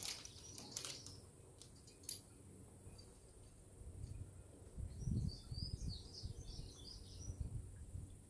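Outdoor ambience: irregular gusts of wind rumbling on the microphone, loudest about halfway through, with a short run of small-bird chirps in the middle and a few sharp clicks in the first two seconds.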